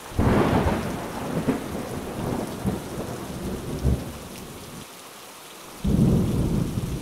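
Thunderstorm: two rolls of thunder over steady rain. The first starts right away and rumbles off over several seconds; the second breaks about six seconds in.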